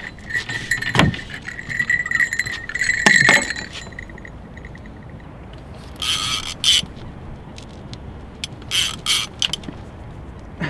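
Fishing reel's ratchet buzzing as a catfish takes line off the spool after a bite, slowing into separate clicks and stopping about four seconds in, with two sharp knocks along the way. Later come a few short bursts of rustling handling noise.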